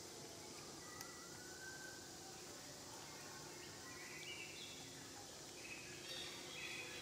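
Faint outdoor ambience: distant birds calling in short whistled notes and small glides over a steady low hiss, with the calls growing busier near the end.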